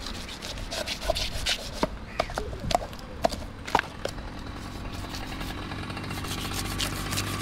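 A knife scraping and knocking along the scales of a large catla fish on a wooden log block: a run of sharp scrapes and knocks in the first few seconds. A steady low hum grows louder near the end.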